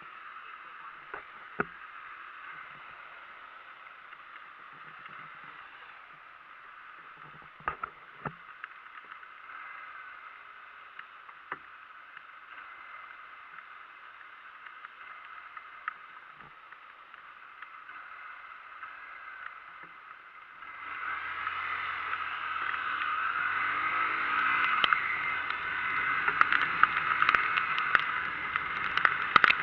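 Steady hiss of wind and rain noise on the microphone while riding in the rain, with a few sharp clicks. About two-thirds of the way in it grows clearly louder and a low rumble joins it.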